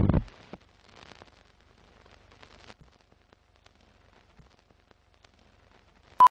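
Film-countdown-leader sound effects: a loud low thump right at the start, then faint crackle with scattered small pops like old film running, and a single short, sharp beep near the end, the countdown's sync beep.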